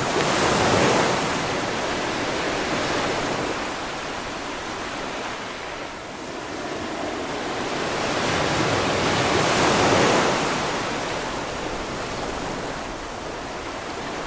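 Steady rushing outdoor noise that swells about a second in and again around ten seconds, then eases.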